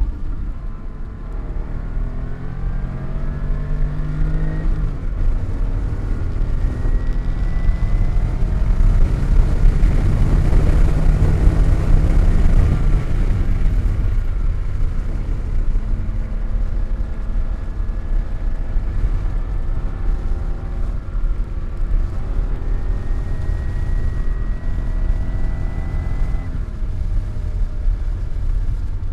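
Car engine under hard acceleration, its pitch climbing and then dropping sharply at an upshift about five seconds in and again near the end, with a surge of wind and road noise in the middle.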